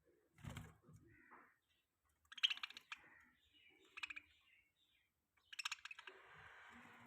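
Budgies chattering in four short, buzzy bursts of rapid clicking notes, with a softer rasping stretch near the end.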